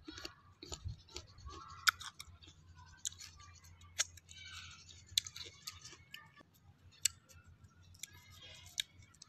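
Close-up eating sounds: crisp bites and chewing of a small green fruit dipped in chili salt, with wet lip smacks and finger sucking, coming as irregular sharp clicks over a faint low hum.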